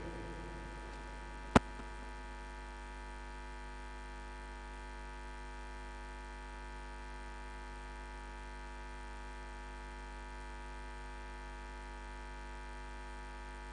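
Steady electrical mains hum with many even overtones on the commentary audio feed, and one sharp click about a second and a half in.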